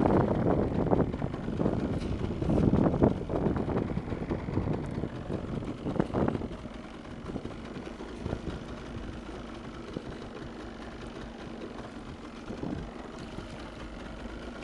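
Wind buffeting the microphone, gusty and uneven for about the first six seconds, then easing to a quieter, steadier rush.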